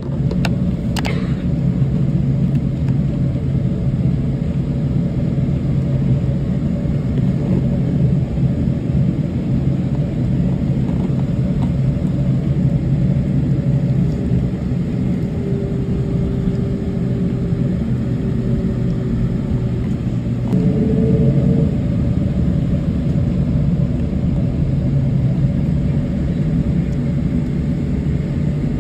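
Boeing 767-300 cabin noise while taxiing: a steady low rumble and hum from the engines and airframe, heard from a window seat over the wing. A faint whine comes in about halfway through and steps up in pitch around two-thirds of the way, when the rumble grows briefly louder.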